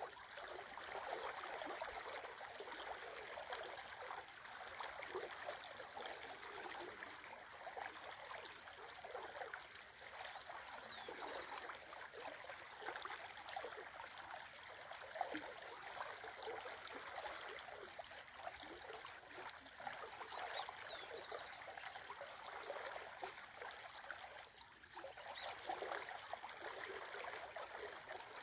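Shallow river running steadily over a stony riffle and around snags, a continuous gurgling and trickling of the water.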